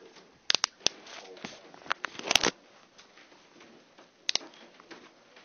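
A few sharp clicks and scuffs with clothing rustling close to a body camera's microphone: three quick clicks about half a second in, a louder cluster a little after two seconds, and a pair more near the end.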